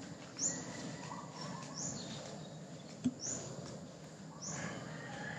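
Birds calling: a high, short call repeats about every second and a half, with softer chirps around it over a steady low background noise. A single sharp click comes about three seconds in.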